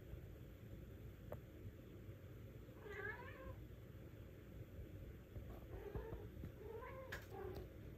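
A cat meowing in whiny, high-pitched cries: one call about three seconds in and two or three more a couple of seconds later.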